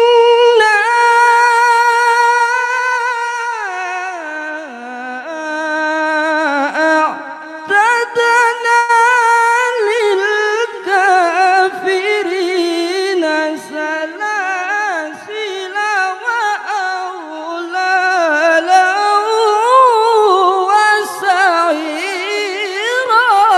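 A male qari's melodic Quran recitation (tilawah), sung into a microphone: one long, ornamented phrase that starts on a held high note, dips lower about four seconds in, then weaves up and down and climbs again near the end.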